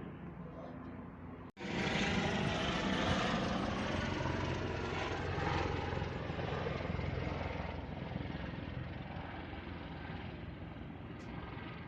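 A helicopter passing close overhead, starting abruptly about a second and a half in at its loudest, with a deep steady rotor hum. Its pitch sinks a little and it slowly fades as it moves away.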